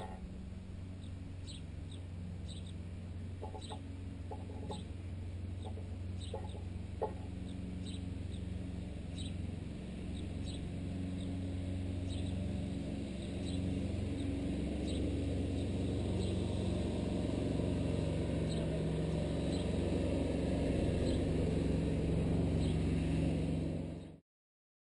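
Sparrows chirping over and over, with a few sharp pecking knocks on a baguette carried loudly through the tent pole and guy line. Under them a steady low engine hum, the lawn tractor, grows louder. The sound cuts off suddenly near the end.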